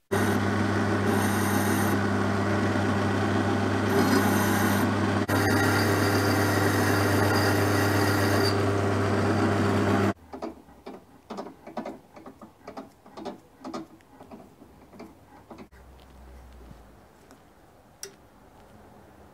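Meddings pillar drill running with a steady motor hum while the bit cuts in bursts of high hiss; the drill sound stops suddenly about ten seconds in. Short irregular scraping and rubbing sounds follow, with a single sharp click near the end.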